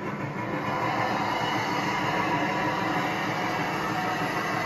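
G scale model train with heavyweight passenger cars running past on the layout track: a steady rolling rumble of wheels on rail that grows louder about half a second in.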